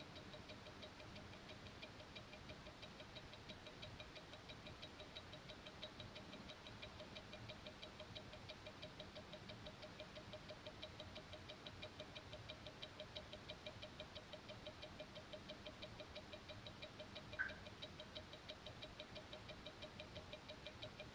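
Faint, rapid, even ticking of an Invicta 8926OB's Seiko NH35A automatic movement, the escapement beating steadily. One short, louder click comes about 17 seconds in.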